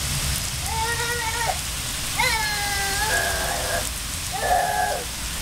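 Water from a garden hose spraying and pattering down like rain, with a toddler's high voice calling out about four times over it, short calls under a second each, one with a falling pitch.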